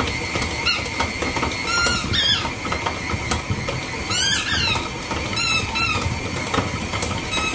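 A dog's squeaky tennis ball squeaking several times, short high falling squeaks, some in quick pairs. Under them runs the steady hum of a KitchenAid stand mixer kneading bread dough with its dough hook.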